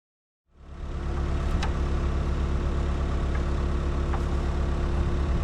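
Skid steer's diesel engine running steadily, starting abruptly about half a second in, with a few faint ticks over the top.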